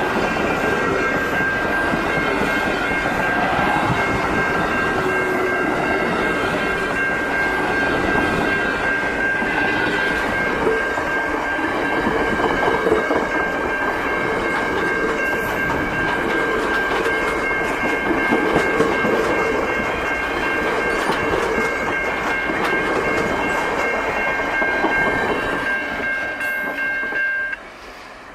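Passenger train rolling past, its wheels running on the rails, with a steady high ringing tone over the rumble that cuts off suddenly near the end.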